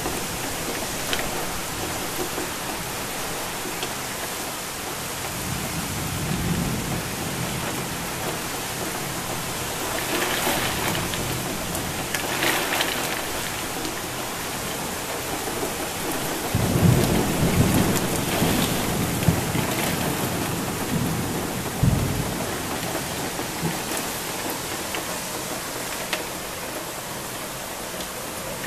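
Heavy wind-driven rain pouring steadily, swelling and easing in gusts. Deep low rumbles rise under it twice, the stronger about two-thirds of the way through.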